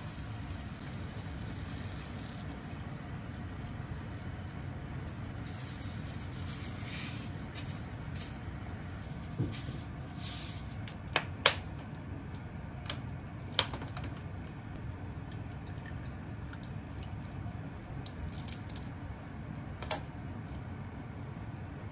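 Cooking in a frying pan over a steady low rumble: liquid is poured into the pan of pork and daikon about six seconds in. Several sharp clicks and taps of kitchen utensils against the pan follow, the last near the end.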